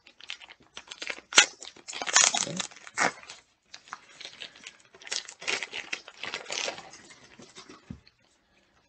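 Plastic wrapping on a stack of comic books crinkling and tearing as it is pulled open by hand, with a sharp snap about a second and a half in.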